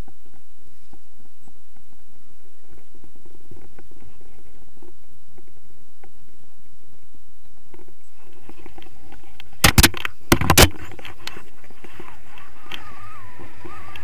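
Low wind rumble on a hand-held action camera's microphone, with a quick cluster of loud knocks on the camera about ten seconds in, during a tandem paraglider launch.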